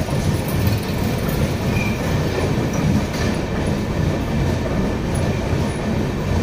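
Passenger train coaches running along the track, a steady low running noise of wheels on rails heard from aboard the moving Pushpak Express.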